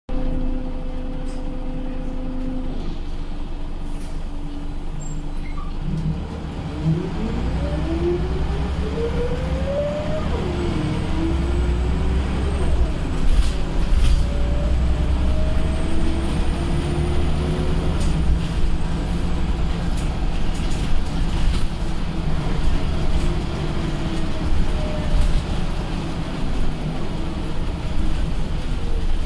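Scania single-deck bus heard from inside the saloon, a steady engine and drivetrain hum for the first few seconds, then pulling away and accelerating. Its whine climbs and drops several times as the automatic gearbox changes gear, over a heavy low rumble with a few short knocks and rattles.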